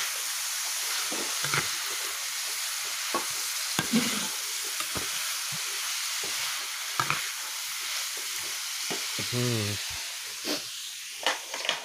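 Winged beans being stir-fried in an aluminium wok: a steady sizzle, with a metal spatula scraping and clicking irregularly against the pan as they are stirred.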